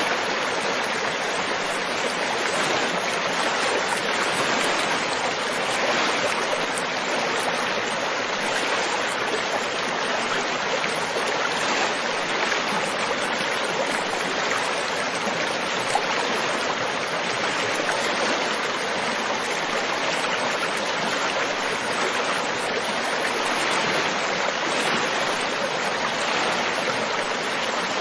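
Running water rushing steadily and evenly, like a stream.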